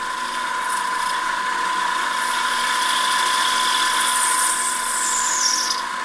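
Mini lathe running with its tool bit facing off the end of a PVC pipe: a steady motor whine under the continuous hiss of the cut, with a high squeal sliding downward near the end. The cut now sounds full rather than interrupted, the sign that the uneven pipe end is nearly faced flat.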